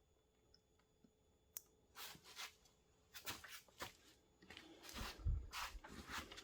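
Quiet handling noises: a sharp click about a second and a half in, then a run of short rustles with a low thump near the end, as wiring and plug-in connectors are handled.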